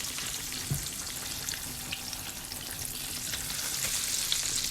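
Salmon frying in butter in a pan: a steady sizzle with scattered small crackles and pops, and a soft knock a little under a second in.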